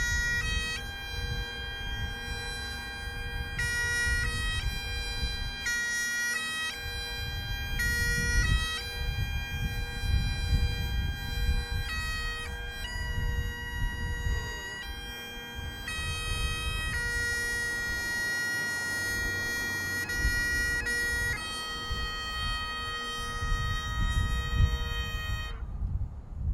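Bagpipes playing a melody over a steady drone, with the notes changing every second or so; the piping stops shortly before the end.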